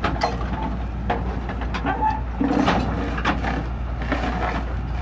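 Hitachi EX120 excavator's diesel engine running steadily, with repeated sharp clanks and knocks as the machine shifts on its tracks.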